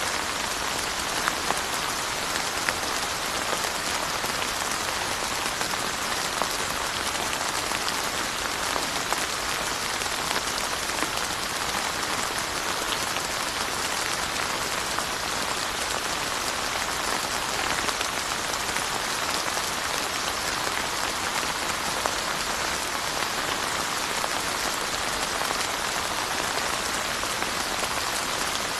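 Steady rain falling on surfaces, an even hiss with scattered individual drop ticks throughout.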